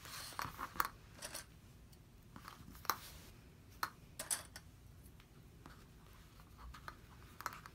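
Faint handling sounds: scattered light clicks and rustles as a quilted fabric panel edged with plastic clips is shifted and smoothed on a cutting mat. The clicks are irregular, bunched in the first second and around the middle, with one more near the end.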